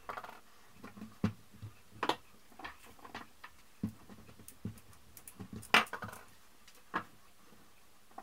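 Irregular clicks, taps and soft knocks of hands handling a small figure and a wooden rolling pin on a wooden tabletop while working a slab of modelling dough, the sharpest knock about six seconds in.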